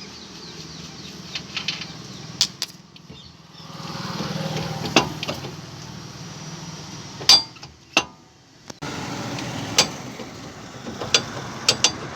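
Nissan Micra on the move with a steady low hum from a worn rear wheel bearing, the bearing noise being diagnosed. A few sharp clicks sound over it, and the sound drops away briefly twice.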